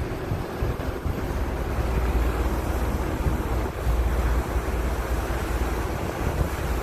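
Wind buffeting the microphone: a loud, uneven low rumble over a steady rushing noise.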